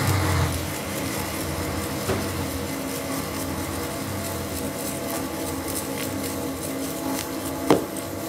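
Sustained ambient drone of several steady held tones, with a hiss that dies down in the first half second. A few light, ringing chime strikes come in near the end.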